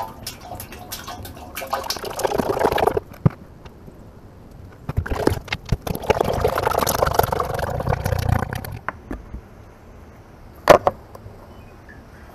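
Hydraulic oil pouring from a plastic jug into an excavator's open hydraulic tank, in two spells. A single sharp knock comes near the end.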